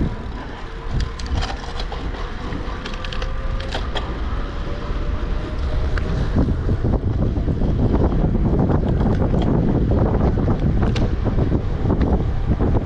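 Wind rushing over the microphone while cycling, over a low tyre rumble with scattered clicks and rattles from the bike. The wind grows louder through the first half as the bike gathers speed.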